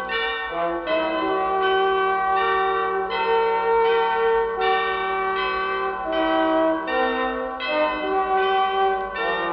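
Chiming bell tones, struck about twice a second over held lower notes that change a few times: bell-like background music.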